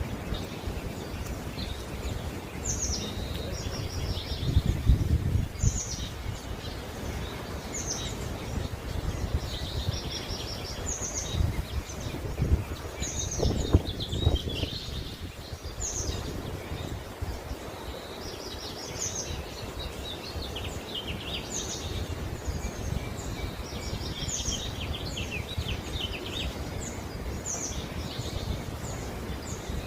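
Small birds chirping over and over in short high calls, over a steady low rumble of background noise that swells twice, around five seconds in and again around thirteen seconds.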